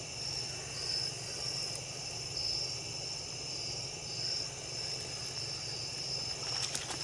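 Night insects such as crickets chirping in a steady high-pitched chorus that swells and fades, over a low steady hum. A few faint clicks near the end.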